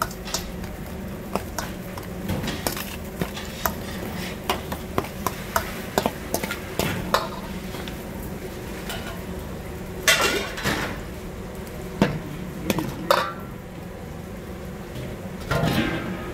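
Metal spoon scraping and clinking against a large stainless-steel bowl as a thick chili-flake seasoning paste is stirred, with a few sharper clanks around ten, twelve and thirteen seconds in. A steady hum runs underneath.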